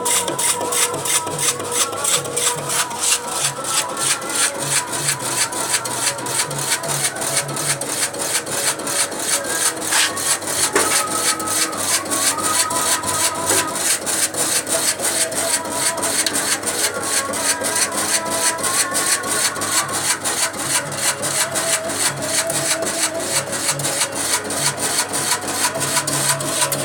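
Electric 150-watt chip-slicing machine running and slicing, with a fast, even beat of about three to four cutting strokes a second.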